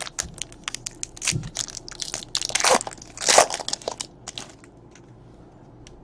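Crinkling and crackling of trading-card packaging being handled, a quick run of sharp crackles and rustles that stops about four and a half seconds in.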